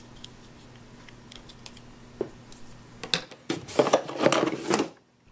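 Small plastic toy pieces being handled: a few faint clicks at first, then a second or so of clattering and rustling starting about three seconds in, over a low steady hum.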